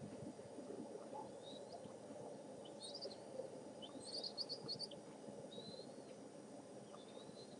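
Small songbirds chirping in short, high twitters, with a quick run of several notes about four seconds in, over a steady low crackling rustle.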